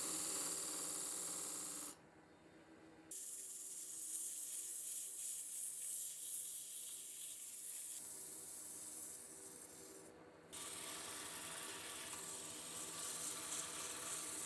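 Benchtop wood lathe running with its steady motor hum while a hand tool and then sandpaper hiss and rub against the spinning wooden part. The rubbing stops for about a second near two seconds in and again briefly around ten seconds, leaving only the lathe's hum.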